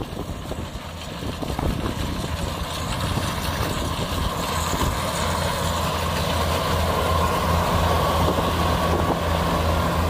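Kubota DC60 rice combine harvester running while cutting and threshing, its diesel engine and threshing drum giving a steady hum. It grows louder as the machine draws nearer, with a steady whine coming in about halfway through.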